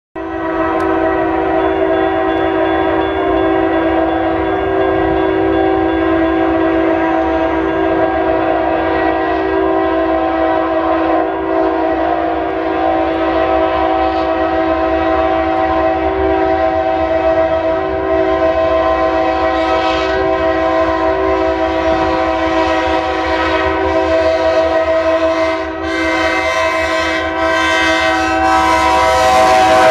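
CSX freight locomotive's air horn sounding a chord almost without a break as the train approaches the grade crossing, with one short gap near the end. It grows louder in the last few seconds, with clatter rising underneath, and its pitch starts to drop as the locomotive reaches the crossing.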